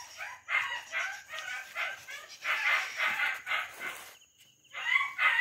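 Domestic chickens clucking in a quick run of short calls, about two to three a second, pausing briefly about four seconds in.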